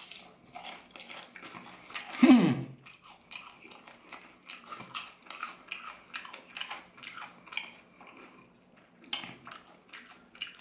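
Close-up crunching and chewing of crispy fried chicken in a potato-starch coating, with many short crackles as the crust breaks and the piece is torn apart. About two seconds in comes one louder, short vocal sound that falls in pitch.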